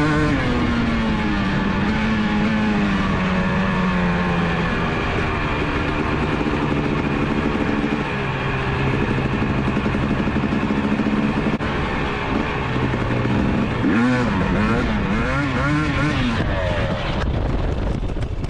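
Husqvarna TC250 single-cylinder two-stroke dirt bike engine under riding: revs ease off over the first few seconds, hold steady with a few shifts, then rise and fall in several quick blips of the throttle late on.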